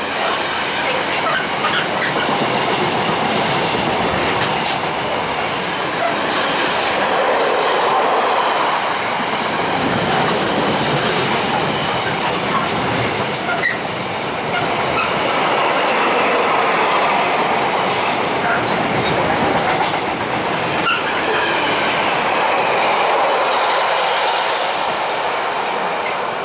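Loaded container flat wagons of a freight train rolling past at speed: continuous wheel-on-rail rumble and clatter, with a few short wheel squeals. The noise eases off near the end as the last wagons go by.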